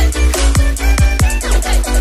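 Electronic background music with a heavy bass and a steady drum beat.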